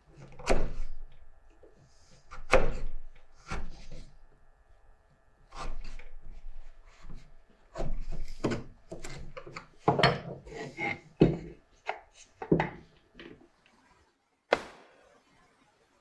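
Hand work on wooden box parts at a wooden workbench: irregular sharp wood-on-wood knocks as pieces are set down and handled, with short stretches of scraping and rubbing between. One last sharp knock comes near the end.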